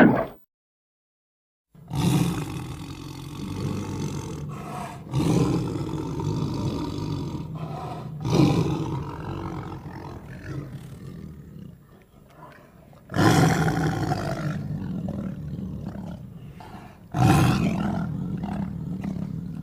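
Designed monster roars for a were-hyena creature, mixed from dinosaur, big-cat and other creature sound effects. After a brief sound at the start and a short silence come five heavy roars, each starting loud and trailing off into a long rumbling growl.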